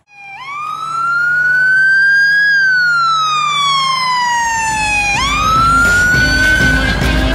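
Emergency vehicle siren wailing: a single tone that climbs slowly for about two seconds, slides back down for about two and a half, then climbs again. A low rumble joins underneath about halfway through.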